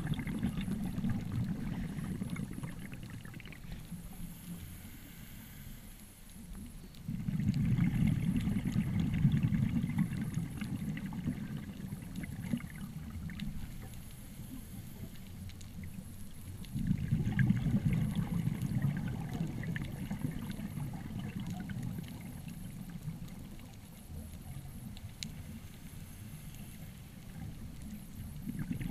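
Scuba diver breathing through a regulator, heard underwater: exhaled bubbles rumble in bursts of a few seconds, about every ten seconds, with quieter stretches between.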